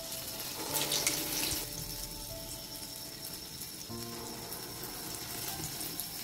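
Black-gram batter badas frying in hot oil in an aluminium kadai: a steady sizzle, flaring up loudest about a second in as a fresh lump of batter is dropped in by hand. Soft background music runs underneath.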